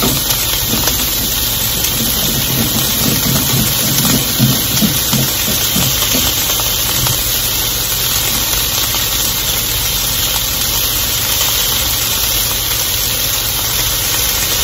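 Bell peppers and onions frying in a lightly oiled wok, giving a steady sizzling hiss over a low hum.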